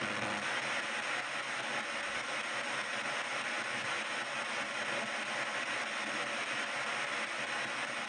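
PSB7 spirit box (ghost box) in reverse sweep, played through stereo speakers: a steady hiss of radio static as the receiver scans rapidly through the radio band.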